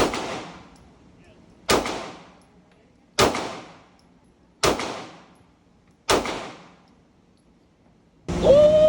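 Glock pistol fired in slow, single shots about a second and a half apart, each shot echoing away before the next. A voice starts near the end.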